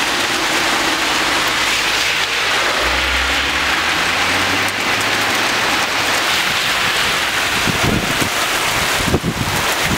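Heavy hail mixed with rain pelting a wet asphalt street: a loud, dense, steady hiss of hailstones striking the road. From about eight seconds in, gusts of wind buffet the microphone.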